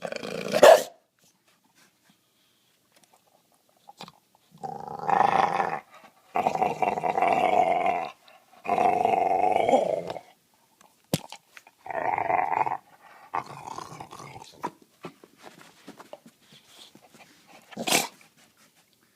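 Pit bull dog vocalizing in a run of long, drawn-out growling calls, each one to two seconds, four in a row from about five seconds in. A short sharp sound opens them, and a single short burst comes near the end.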